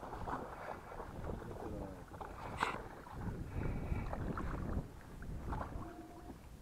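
A small hooked pike splashing and thrashing at the surface beside a boat while it is reeled in on a spinning rod, with short sharp splashes and clicks of rod and reel handling and one sharp click about two and a half seconds in. Wind buffets the microphone, strongest in the middle.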